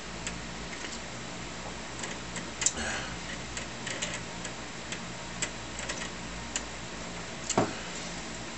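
Amiga 2000 disk drive clicking irregularly while it loads, over the computer's steady low hum.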